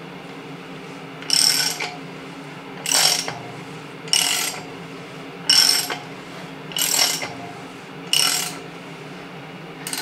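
A ratchet wrench clicks in six short bursts, about one every second and a half, as a Chrysler 383 big-block V8 is turned over by hand to check that the lifters rotate in their bores.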